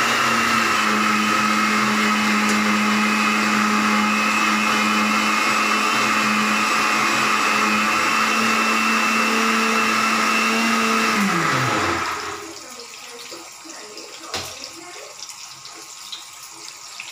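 A small electric motor running at a steady pitch, then winding down with falling pitch and stopping about 12 seconds in. After it, button mushrooms sizzle in hot oil, much quieter.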